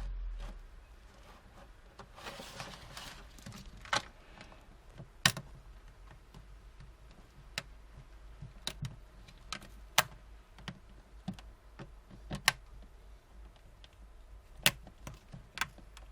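Sharp plastic clicks and taps, about a dozen spread irregularly, with a stretch of scraping about two seconds in: clipped plastic parts of a Samsung Galaxy Note 10.1 tablet being pried and unclipped.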